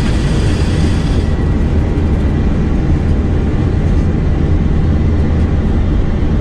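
Boeing 747-200's four engines at takeoff thrust, heard on the flight deck as the takeoff roll begins: a loud, steady rumble with a deep low drone and a broad hiss that eases about a second in.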